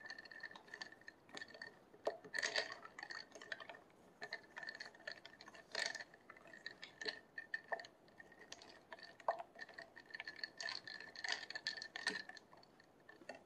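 A wooden stirrer swirling ice cubes and tapioca pearls in a drinking glass of iced milk tea: irregular light clinks of ice and wood against the glass, each with a brief glassy ring, coming in clusters.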